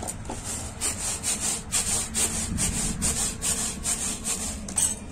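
Roasted pearl millet grains swishing across a ribbed plastic tray in even strokes, about four a second, as the tray is shaken to winnow the grain from its husk. A sharper click comes just before the end.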